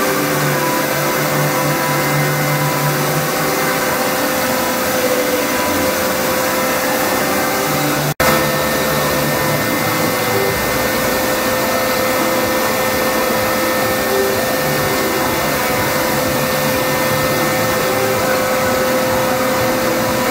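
Asquith Butler CNC horizontal boring mill's spindle driving an end mill through timber: a loud, steady machining noise with a constant whine. It cuts out for an instant about eight seconds in.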